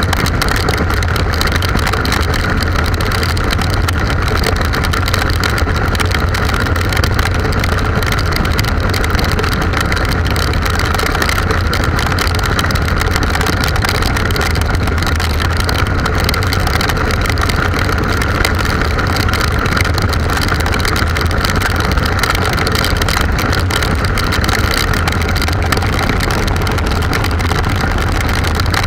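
Touring motorcycle cruising at steady highway speed in the rain: an even engine drone under wind rush and the hiss of tyres on a wet road, with no change in speed.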